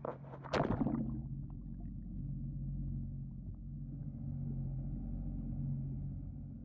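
A splash about half a second in as the camera plunges into the sea, then a muffled underwater hum with steady low tones: a Sea-Doo jet ski's engine running, heard through the water.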